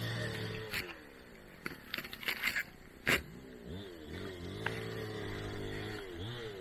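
Vehicle engine running, its pitch holding steady, then sliding down and rising again as it is revved and eased off, with a couple of sharp knocks.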